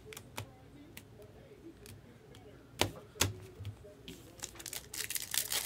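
Trading card packs and cards being handled: scattered light clicks and taps, one louder about three seconds in. Near the end comes a denser crinkling of a foil pack wrapper as a pack is opened.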